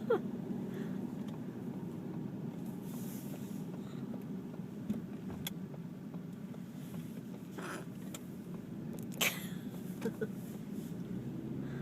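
Steady road rumble inside a moving car, broken by a few brief sudden sounds from a person hiccupping. The loudest comes about nine seconds in, followed by two short squeaks.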